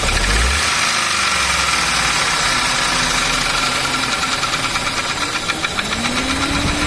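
Ford Ka three-cylinder engine running with the abnormal internal noise under diagnosis, picking up revs with a rising pitch near the end. The mechanic takes the noise as a sign that the engine has to be opened up.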